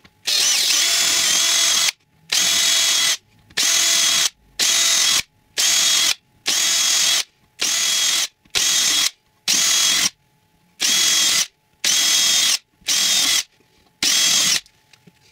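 Makita cordless drill running in about thirteen short bursts, the first the longest, each at a steady speed with brief pauses between. It is drilling a ring of small holes through 3 mm plywood.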